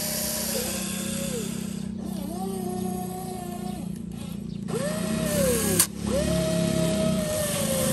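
Electric motors of a Huina RC excavator whining as the arm digs, dumps and swings: several whines that rise in pitch, hold, then fall away, each a second or two long, over a steady low buzz. There is one sharp click about six seconds in.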